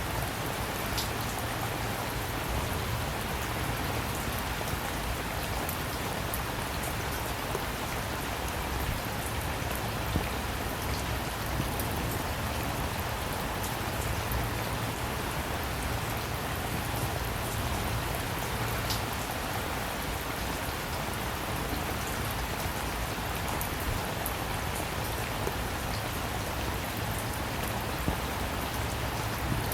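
Steady rainfall with scattered individual drops pattering and a few sharper drop hits.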